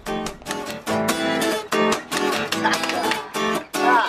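Music: a strummed acoustic guitar playing chords in phrases, with short breaks between them.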